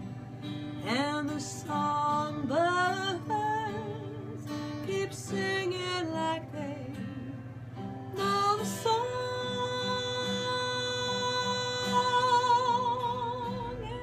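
A woman singing a slow ballad, accompanied by her own acoustic guitar, with a long note held with vibrato through the second half.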